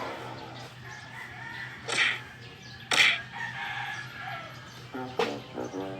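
Chicken sound effect: two sharp, short squawks about a second apart, then a quick run of short clucks near the end.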